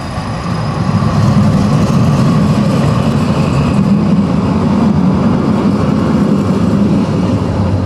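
Steady low rumble of a moving vehicle heard from on board, swelling during the first second and then holding.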